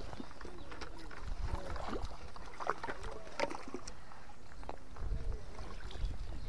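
Water splashing and sloshing close by as a hooked trout is brought to the bank and scooped into a landing net, with scattered small clicks and low rumbles of handling.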